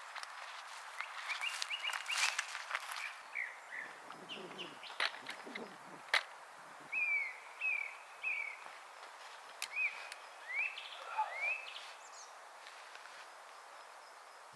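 Small songbird chirping in a forest, short notes that come about twice a second in the second half, over a steady faint outdoor hiss. A few sharp clicks and rustles sound in the first half.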